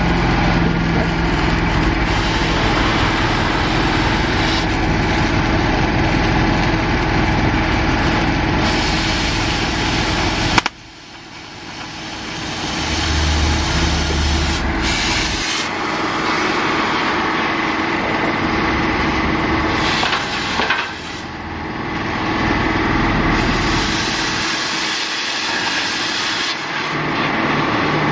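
Arc welding on a steel tube frame: a steady crackling hiss from the arc over a running engine. About eleven seconds in there is a sharp click, the sound drops away, then it slowly builds back.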